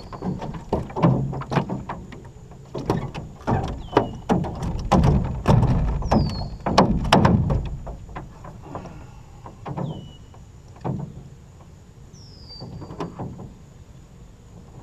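A freshly caught bass flopping on the floor of a metal jon boat: a run of irregular thumps and knocks, dense for the first eight seconds or so, then only a few. A bird's short falling whistle repeats about five times, every few seconds.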